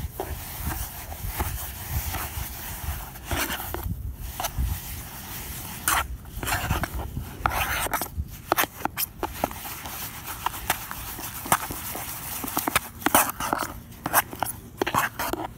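Crunchy foam slime full of small foam beads being pressed and scraped with a flat plastic tool in a plastic tub: a dense run of crackles and crunches in clusters, with short pauses between strokes.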